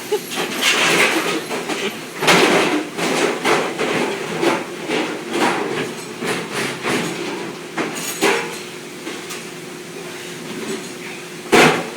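Dishes and metal ware clattering and clanking in a busy commercial dish pit: a quick run of irregular knocks and bangs, over a steady hum.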